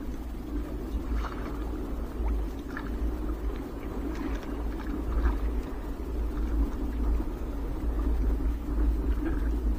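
Low steady rumble of water around a small boat, with faint soft rustles and ticks as hands work a fish free of a nylon triple net.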